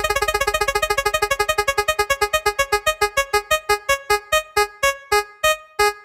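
Spinning prize-wheel sound effect: a run of short, pitched synth ticks that slows steadily, from a fast rattle to about two ticks a second near the end, as the wheel winds down.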